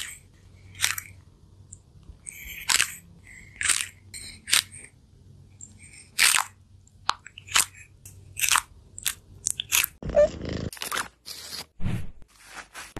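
A small tortoise biting into a strawberry: about a dozen crisp, irregularly spaced crunches. About ten seconds in, a rougher, denser noise takes over.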